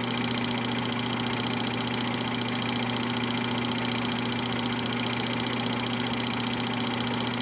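Film projector running: a steady mechanical whir with a hum and a rapid, even ticking from the film transport.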